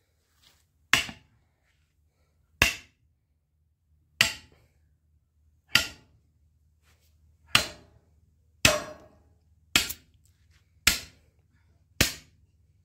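Hand hammer striking an upright steel bar, nine sharp metallic blows about one to one and a half seconds apart, each ringing briefly.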